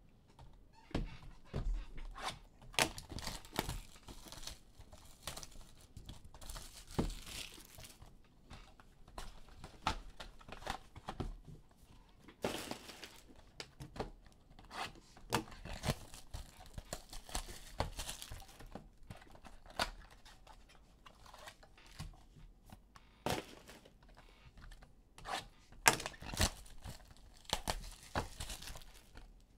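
Trading-card pack wrappers being torn open and crinkled by hand: an irregular run of rustling, crackling and sharp clicks, with several longer tearing rustles.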